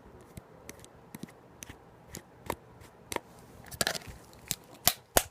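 Small clicks and snaps as an iPod's internal part is pried loose and pulled out, coming faster and louder towards the end, with the sharpest snaps just before it comes free.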